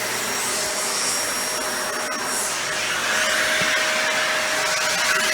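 Dyson Ball Animal 2 upright vacuum running steadily with its suction going through the hose and extension wand: an even rush of air with a constant whine.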